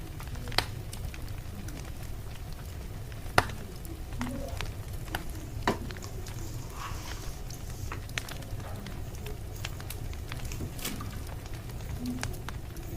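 Wood fire crackling: sharp, irregular pops every couple of seconds over a steady low rumble.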